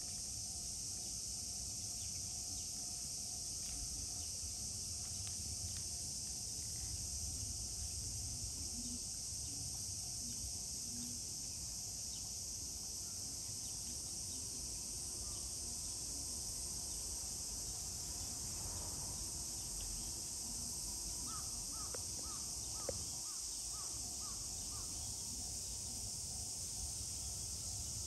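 Crows cawing faintly over a steady, high-pitched insect drone and a low outdoor rumble. About three-quarters of the way in comes a quick run of short high notes and one sharp click.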